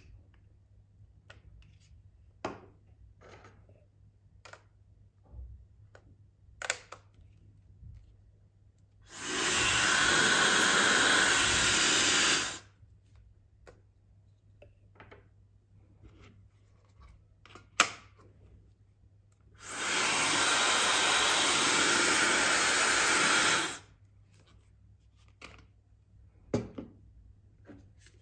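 Aisuru 1600 W hair dryer switched on and blowing steadily, twice: once for about three and a half seconds and again for about four seconds, each cutting off sharply. Between the runs there are scattered short clicks and knocks.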